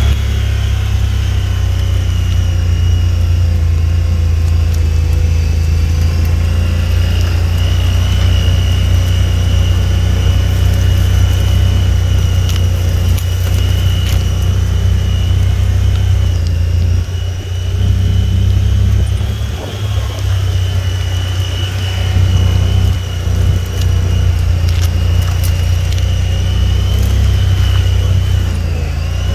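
A vehicle's engine running with a steady heavy low rumble and a thin high whine as it drives along a snowy dirt track. The rumble briefly dips about two-thirds of the way through.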